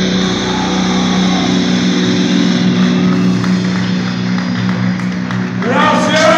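A live metal band's final chord ringing out through the guitar and bass amplifiers as a steady sustained drone, the drums dropping out about two seconds in. Near the end a loud, drawn-out tone rises in pitch and becomes the loudest sound.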